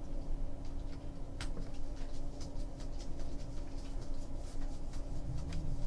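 Baseball trading cards being handled and flipped through from a freshly opened pack: soft repeated scratchy slides and ticks of card stock, with one sharper click about one and a half seconds in, over a steady low room hum.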